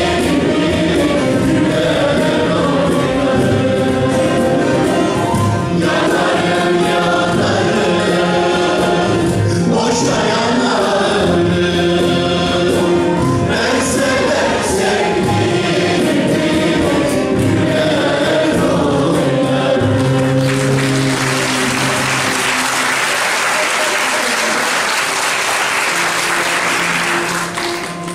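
Turkish folk song sung by a mixed choir and a male soloist, with bağlama (saz) accompaniment, ending about twenty seconds in. Audience applause follows for several seconds.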